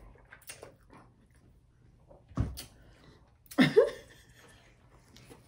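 Lobster tail shells being pulled and cracked apart by hand, with faint small crackles and clicks. There is a single thump a little over two seconds in, and a short vocal sound from the eater about a second later.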